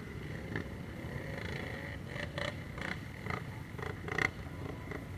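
ATV engines running at low speed, a steady low rumble broken by several short crackles on the microphone, the loudest about four seconds in.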